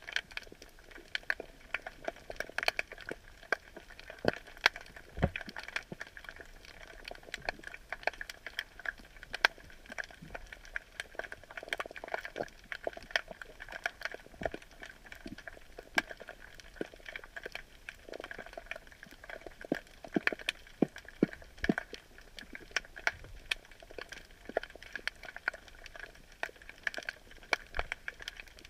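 Underwater sound picked up by a submerged camera: a dense, irregular crackle of sharp clicks over a steady hiss, several clicks a second, some much louder than the rest.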